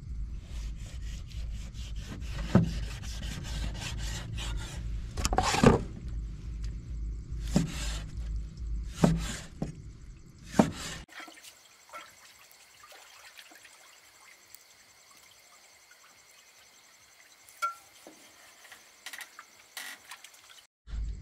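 Large cleaver slicing raw pork belly on a round cutting board, the blade knocking sharply on the board about five times over a steady low hum. About halfway through, the hum stops and the sound falls to a quieter background with faint ticks.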